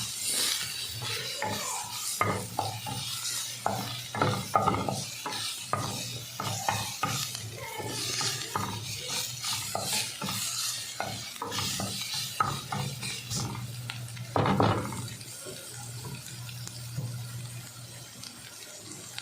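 Food frying in a pan and being stirred: repeated scrapes and clicks of a cooking utensil against the pan over a steady sizzle. There is one louder clatter about fourteen and a half seconds in, after which the stirring stops and only the quieter sizzle goes on.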